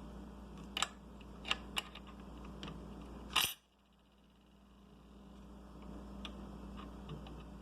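A few short, sharp clicks and taps of small hard objects being handled, with a louder click about three and a half seconds in, followed by a moment of near silence and a few fainter clicks near the end.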